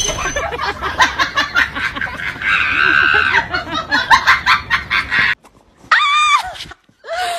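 A person laughing in quick bursts for the first five seconds. After a sudden break, a single short, high-pitched arching cry about six seconds in.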